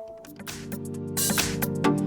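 An alarm tone previewing through the Samsung Galaxy Tab S7 FE's speaker: an electronic tune of held chords and regular beats that starts softly and grows louder about a second in.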